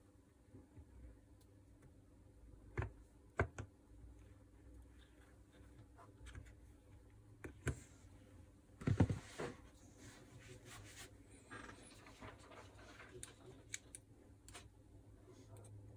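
Small clicks, taps and rustles of wires and plastic parts being handled and pressed into the open plastic housing of a Makita 4329 jigsaw during reassembly, with a louder rustling clatter about nine seconds in.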